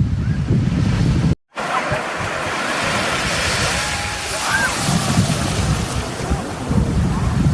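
Surf breaking and washing on a beach: a steady roar of waves, with wind buffeting the microphone. A brief dropout about a second and a half in, where one clip cuts to the next.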